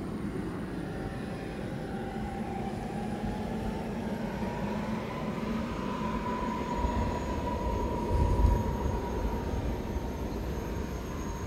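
Four JetsMunt M166 model jet turbines on a large RC Airbus A380 whining steadily while it taxis, their pitch rising slightly over the first few seconds. A low rumble runs underneath and swells briefly about eight seconds in.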